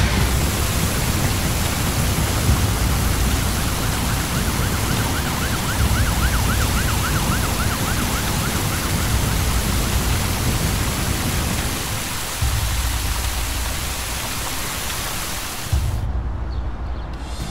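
Steady rushing roar with a deep rumble underneath, and a faint wailing siren rising and falling about two or three times a second from roughly 3 to 9 seconds in. The hiss thins out about a second before the end.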